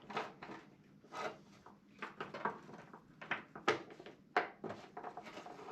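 Saw chain being worked onto a chainsaw guide bar by hand, with irregular metallic clicks and rattles from the links, about ten in a few seconds.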